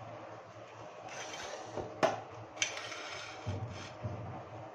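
Faint handling noises: a short scraping rustle, then two sharp clicks about two seconds in and half a second apart, over a low steady hum.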